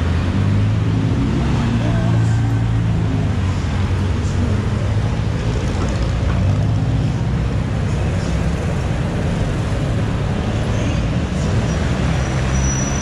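City street traffic: a steady hum of vehicle engines running on the road alongside, with people's voices in the background.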